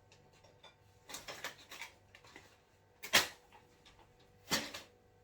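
Paper food packaging being handled: a run of soft crinkles about a second in, then two louder sharp crackles, about three seconds and four and a half seconds in.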